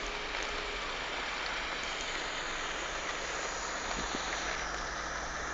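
Cars driving on a snow-covered road: a steady rush of tyre and road noise, with a low engine hum coming in about four seconds in.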